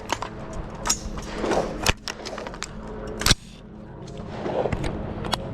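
A string of sharp clicks and knocks, about six of them, the loudest a little past three seconds in, typical of pistols and magazines being handled and holstered.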